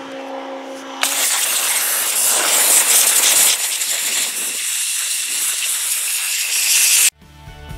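Cheap 1300 psi electric pressure washer: a steady hum, then about a second in the water jet starts with a loud, steady hiss as it sprays a boiled deer skull clean of flesh. The spray cuts off suddenly near the end.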